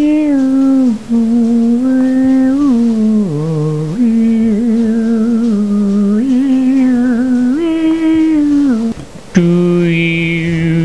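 A voice hums a slow wordless tune in long held notes that step up and down, breaking off briefly about nine seconds in.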